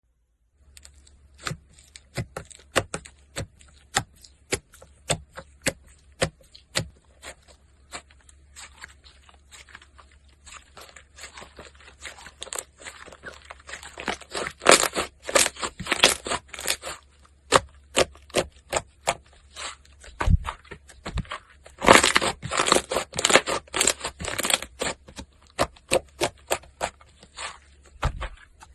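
Hands squeezing and pressing slime, giving a string of sharp clicks and pops: spaced out at first, then coming thick and fast in runs about halfway through and again later on.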